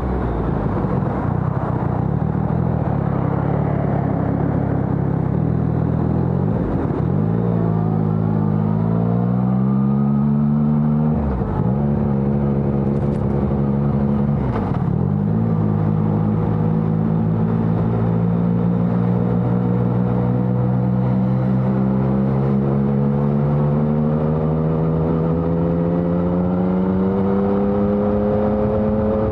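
Yamaha XSR900's 847 cc inline-three engine through a LeoVince Evo One full exhaust system, under way. The revs climb with three brief dips a few seconds apart, then pull steadily and slowly rise.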